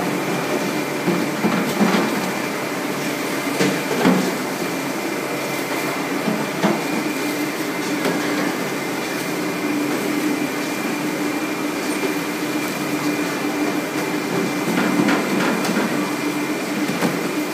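Fish-processing plant machinery running with a steady hum, with a few knocks and clatters from the capelin packing line.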